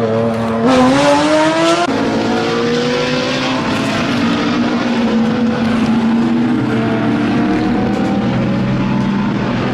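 Racing car engine sound effect: a GT race engine accelerating hard, its pitch climbing, then dropping sharply on an upshift about two seconds in before running on at high revs with slow rises and dips.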